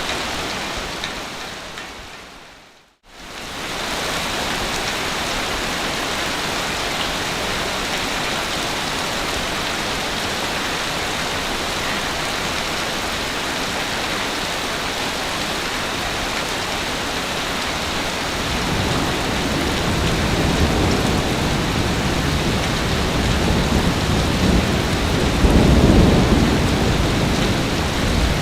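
Ocean surf washing on a beach, a steady hiss of breaking water. About three seconds in it fades briefly to silence and returns, and from about two-thirds of the way through a bigger wave builds with a low rumble that peaks near the end.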